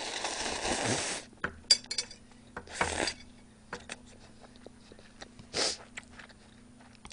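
A person slurping ramen noodles for about a second, then chewing, with scattered light clicks of utensils and two shorter slurping or sniffing sounds later on.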